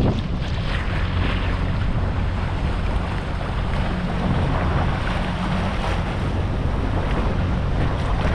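A small boat under way, its outboard motor running steadily, with water rushing past the hull and wind buffeting the microphone.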